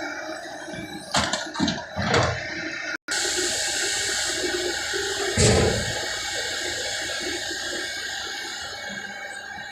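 Fiat-Hitachi 150 excavator's diesel engine and hydraulics running steadily under load, with a few sharp knocks between one and two seconds in and a heavy thud about five and a half seconds in.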